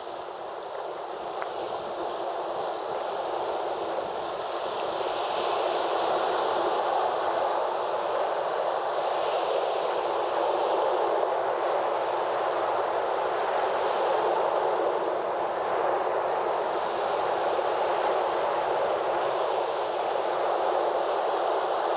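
Sea surf washing onto a beach: a steady rush of breaking waves that swells every few seconds and grows louder over the first several seconds.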